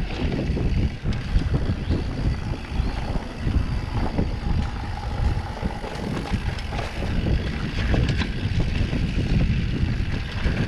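Wind buffeting the microphone as a mountain bike rolls downhill on a dirt trail, with a steady low rumble and many small rattles and clicks as it rides over bumps.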